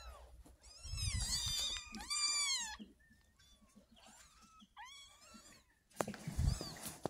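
Young kittens mewing, a run of short, high, thin cries in the first three seconds and another about five seconds in, as they are lifted out of their nest. Low dull bumps of the bedding being handled come through about a second in and near the end.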